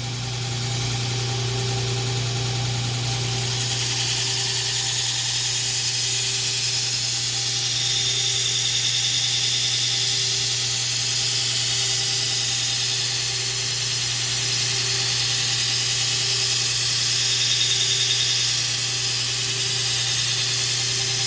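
Power grinder's motor running steadily with the steel side of an antique cleaver blade held against it, a steady abrasive hiss that grows stronger a few seconds in and stops at the very end. The grinding is cleaning up marks on the blade's side.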